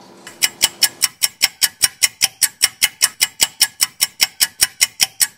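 Clock-ticking sound effect: sharp, evenly spaced ticks, about four a second, starting about half a second in.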